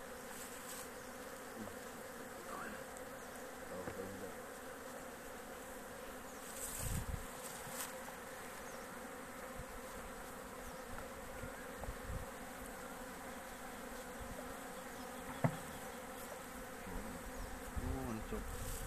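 A colony of honey bees buzzing steadily from an open hive, with a few short knocks, the sharpest about two-thirds of the way through.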